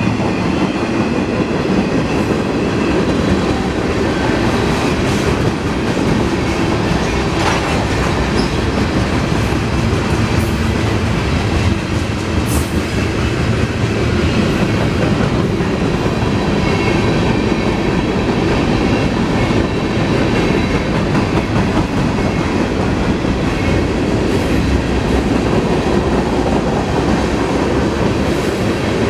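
Freight cars of a mixed freight train (covered hoppers, a boxcar, tank cars) rolling steadily past: steel wheels rumbling and clattering over the rails, with a few sharp clanks.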